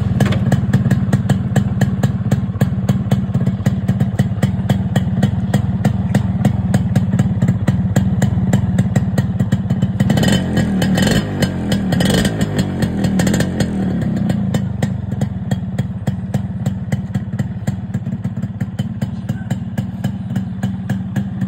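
Yamaha RX100's 98 cc two-stroke single-cylinder engine idling with a fast, even exhaust beat from the chrome silencer. It is revved briefly a few times about ten to fourteen seconds in, then settles back to idle.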